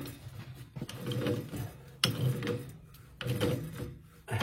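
Pipe wrenches tightening a threaded gas pipe fitting onto a boiler gas valve: repeated rough turning strokes with metal grinding on metal, about one a second.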